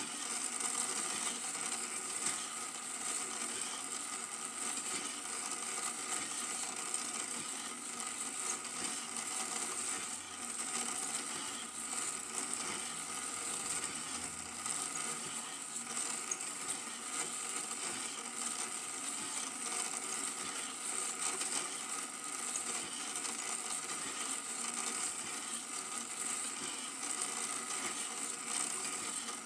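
Super 8 film projector running: a steady, fast mechanical clatter from the film-transport mechanism, with hiss.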